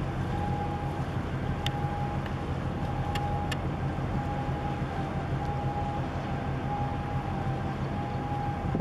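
Steady low engine rumble, with a high steady tone that breaks off and returns every second or so and a few light ticks in the first half.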